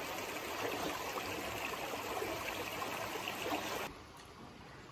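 Shallow, rocky creek running over stones: a steady rush of water. It drops suddenly to a quieter, softer flow near the end.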